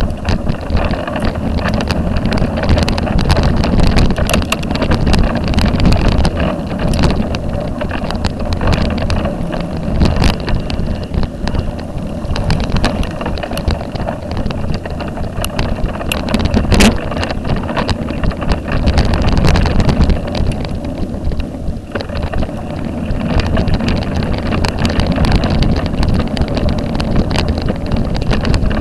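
Bicycle ridden over a rough woodland dirt path: a steady rumble of tyres on the track with many small rattles and knocks from the mounted camera, and wind buffeting the microphone.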